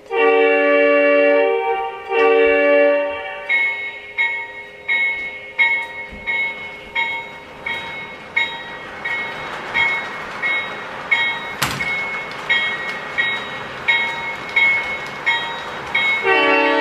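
Sound system of an O-scale model CSX CW44AC diesel locomotive: two horn blasts, then the locomotive bell ringing steadily about one and a half strokes a second over a growing running noise, and the horn sounding again near the end.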